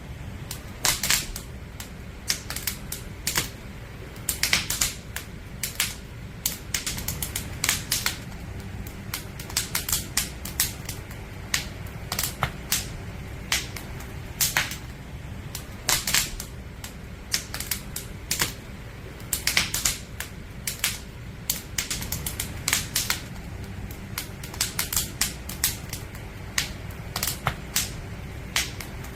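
Firewood burning in a campfire, crackling with irregular sharp pops and snaps over a low steady rumble.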